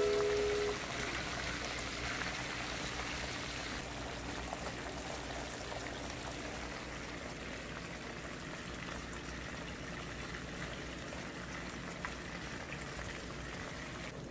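Chicken pieces deep-frying in hot oil: a steady sizzle and bubbling, a little louder in the first few seconds.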